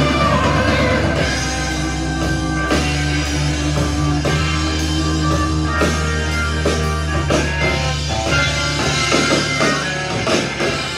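Rock music with electric guitar and drums, played from a vinyl record on a turntable through an Akai AM-U3 amplifier's phono input and loudspeakers.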